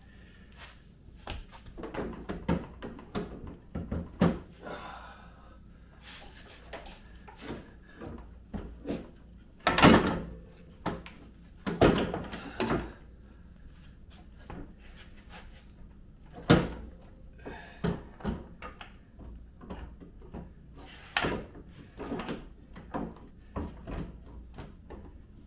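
Irregular metal knocks and clunks as an ATV engine is set down into the Kawasaki Bayou's frame, the heaviest thuds about ten, twelve and sixteen seconds in.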